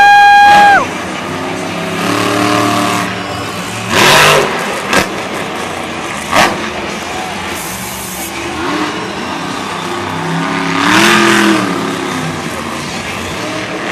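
Monster truck engine revving up and easing off as the truck drives at and jumps a dirt ramp, over steady crowd noise. A loud held horn-like tone cuts off within the first second, and short loud bursts of noise come about four and six seconds in.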